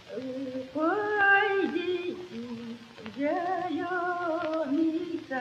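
A woman singing an unaccompanied Russian folk song in two long phrases. Her voice wavers and slides between notes, with a short break in the middle.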